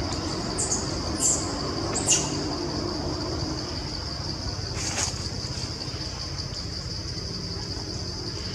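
Outdoor ambience in trees: a steady, high-pitched insect drone, with a few short, high chirps in the first two seconds and one more about five seconds in, over a low rumble.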